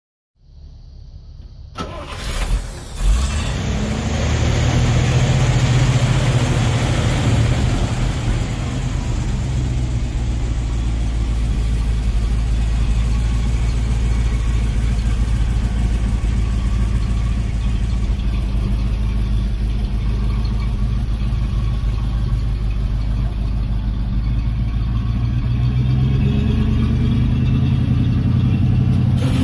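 1978 International 1700 truck's engine cranking and catching about two seconds in, then idling steadily.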